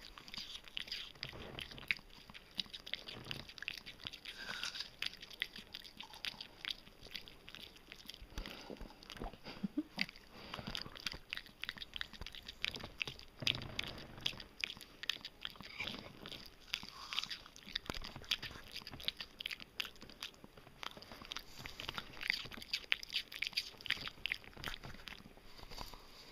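A dog chewing apple, with wet, crunching bites coming irregularly several times a second.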